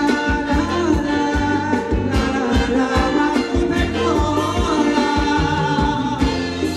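Live Thai ramwong dance music from a band, with a singer over a steady drum beat.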